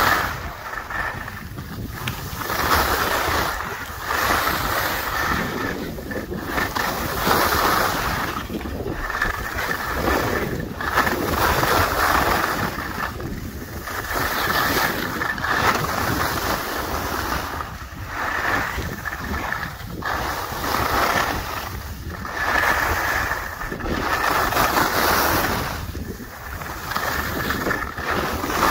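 Skis scraping and carving over groomed snow through a run of turns, the noise swelling and fading every second or two, with wind rushing over the microphone.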